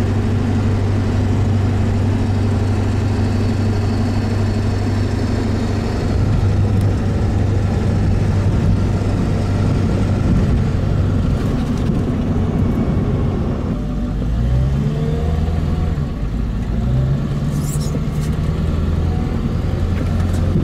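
Pickup truck's engine and road noise heard inside the cab, a steady low drone while cruising. In the second half the engine pitch climbs twice with a short break between, as when pulling away through the gears, and there is a brief high rattle near the end.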